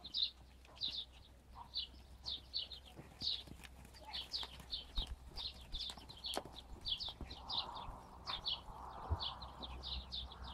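Horse's hoofbeats thudding on a sand arena under a rider, with a bird chirping over and over in the background.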